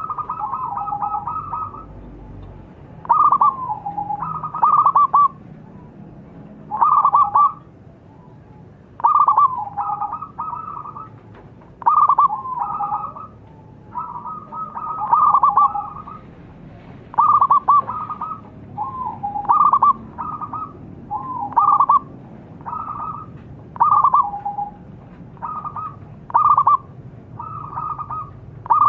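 Zebra dove (perkutut) cooing in persistent full song: a string of short, rapid staccato coo phrases, one every second or two.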